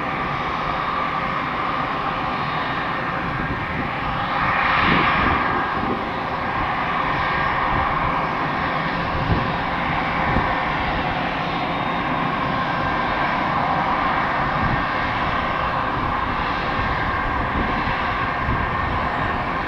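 Jet noise from a Mitsubishi CRJ-900 regional jet's twin rear-mounted turbofans as it comes in to land, a steady rushing rumble that swells briefly about five seconds in.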